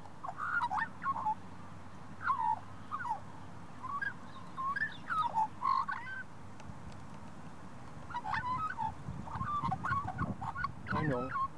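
A black-and-white Australian songbird, which the uploader takes for a pied currawong, giving a run of short, chattering, warbled calls in two bouts, with a gap around the middle and a busier run near the end. A low steady hum sits underneath.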